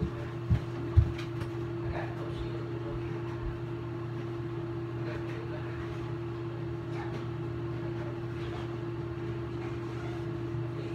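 Steady mechanical hum holding two constant pitches, with two dull low thumps within the first second.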